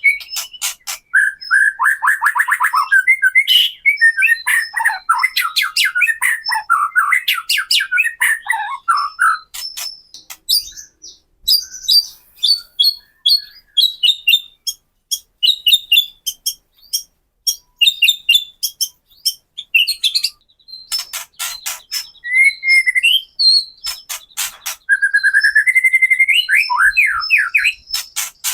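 White-rumped shama (murai batu) song: whistled phrases that slide up and down alternate with long runs of rapid, sharp clicking rattles, the 'kretekan' call, with short breaks between runs.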